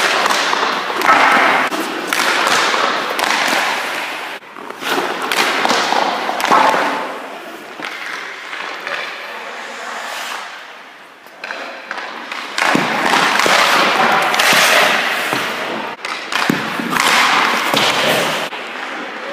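Ice-hockey skate blades scraping and carving on the ice, with sharp strikes of sticks on pucks and pucks thudding off a goalie's pads during a shooting drill. The scraping comes in loud stretches of a second or more, with a quieter stretch about halfway through.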